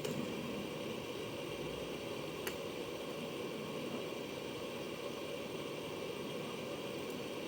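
Hot air rework station handpiece blowing a steady rush of air onto an inductor to desolder it, with one short click about two and a half seconds in.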